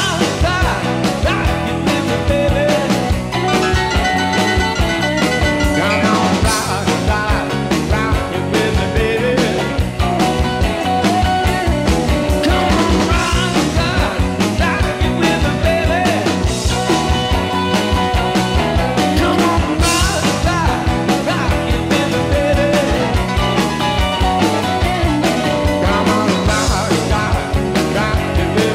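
Rock music with guitar, a steady beat and some singing.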